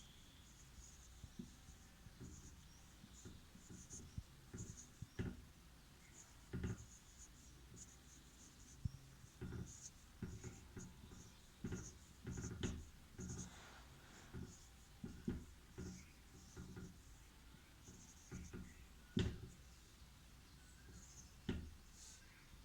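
Faint, irregular scratching and light tapping, many short strokes with a few sharper clicks, like something being handled or rubbed.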